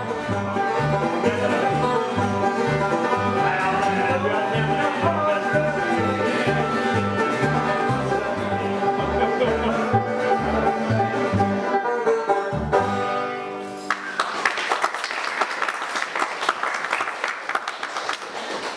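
Acoustic string band with an upright bass playing country-style music, the bass stepping between two notes about twice a second. The music stops about 13 seconds in and gives way to a noisy, clattering hiss.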